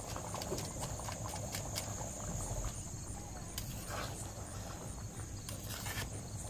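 Chicken curry boiling in an iron karahi over a wood fire, with many sharp pops and crackles, dense at first and thinning out. A ladle stirs and scrapes in the pan in the second half.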